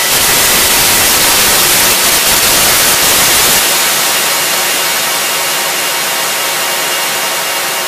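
A loud wash of synthesized white noise in a hardcore electronic track, with no beat under it; about three and a half seconds in its low end drops away and it begins to fade slowly.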